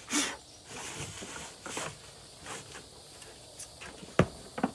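Brief swishing, rustling sounds of handling and wiping, several in a row. Near the end come two sharp knocks; the first is the loudest, and the second, weaker, follows about half a second later.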